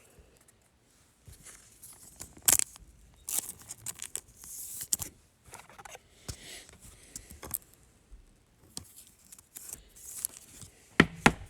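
Football trading cards being handled and sorted by hand: papery swishes of cards sliding over one another, with scattered sharp clicks and taps, the loudest about two and a half seconds in and a quick pair near the end.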